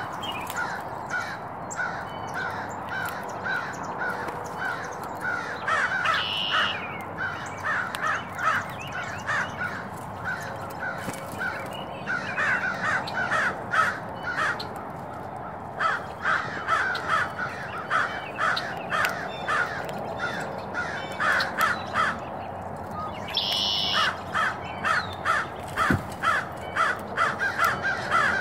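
An animal giving long runs of short, harsh repeated calls, about two to three a second, pausing briefly about ten seconds in and again a little past twenty seconds, with two brief higher-pitched calls in between.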